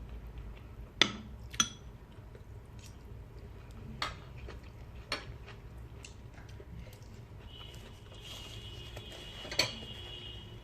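Scattered sharp clicks and clinks of tableware and crab shell being handled while eating steamed crab, about five in all, the sharpest two about a second in. A faint high steady tone sounds through the last three seconds.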